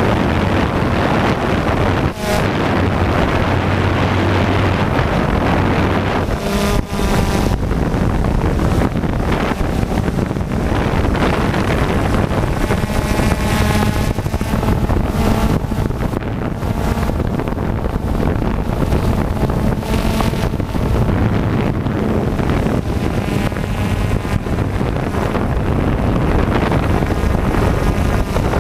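Quadcopter motors and propellers whirring loudly at close range, with wind buffeting the microphone. A whine rises and wavers now and then as the drone manoeuvres.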